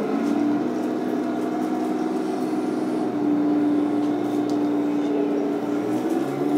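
Full-metal Heng Long Tiger I RC tank running: a steady hum of its electric drive and gearboxes mixed with the simulated tank-engine sound from its onboard sound unit. The pitch steps up a little about three seconds in and shifts again near the end.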